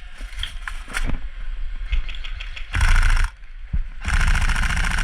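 Airsoft electric gun firing two full-auto bursts, a short one about three seconds in and a longer one near the end, each a fast even rattle of shots, with scattered sharp clicks of single shots or BB hits before them.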